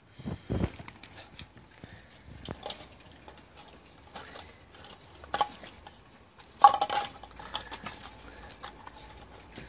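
A puppy pushing and mouthing a hard plastic toy across paving slabs: irregular knocks and clatters, the loudest about seven seconds in.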